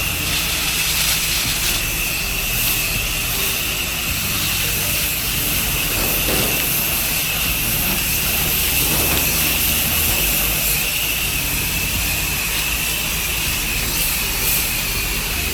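Pressure washer running steadily, its engine humming under the constant hiss of the water spray from the wand as the house is rinsed after a soft wash.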